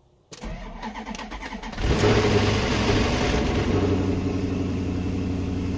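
Maserati Quattroporte's 4.2-litre M139 V8 being started: the starter cranks for about a second and a half, the engine catches about two seconds in, flares up and settles into a steady idle. This is a first start after sitting, which the owner says always brings the variator rattle until oil fills the galleys.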